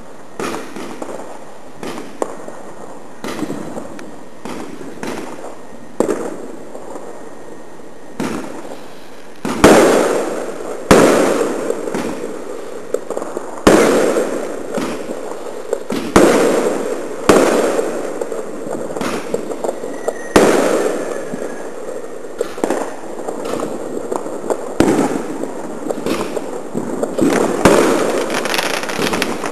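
Fireworks display: aerial shells bursting in a run of sharp bangs, each trailing off in a long echo, with lighter pops and crackle between. The bangs turn louder and come every second or two from about a third of the way in.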